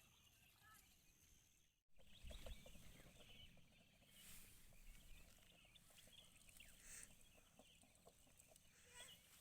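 Near silence: faint outdoor ambience with scattered small clicks and faint animal calls, broken by a brief dropout, like an edit cut, about two seconds in.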